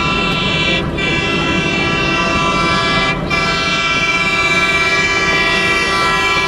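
Air horn of an approaching WDM-series ALCo diesel locomotive sounding long and steady, dropping out briefly about a second in and again about three seconds in, over a low rumble.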